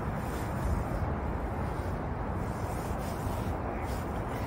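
Magnet-fishing rope hauled up hand over hand, rubbing over a metal bridge railing, against a steady rushing noise.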